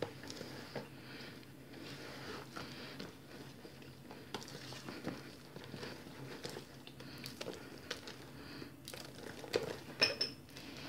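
A hand squeezing and mixing flour into soft, wet yeast dough in a plastic bowl: a soft rustling and squishing, with a few louder knocks near the end.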